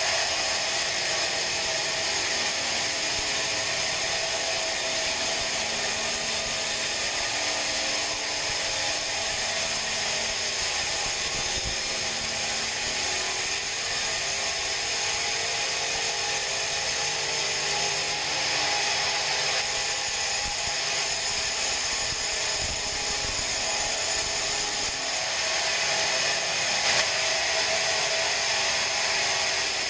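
Band sawmill running, its blade sawing a big pine log: a steady, dense mechanical rasp with a high whine over it.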